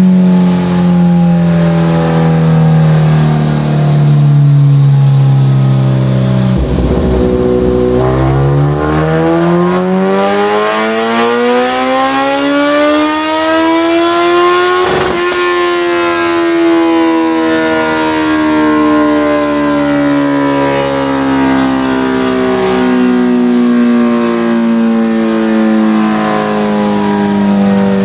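2013 Kawasaki ZX-14R's 1441 cc inline-four running on a chassis dyno: the revs fall, then from about eight seconds in climb steadily through a full-throttle pull, and at about fifteen seconds the throttle closes and the engine note falls slowly as it winds down on the rollers. A baseline pull with no tuning.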